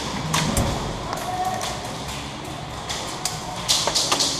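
Airsoft guns firing during a game: scattered sharp snaps, with a quick cluster of shots near the end.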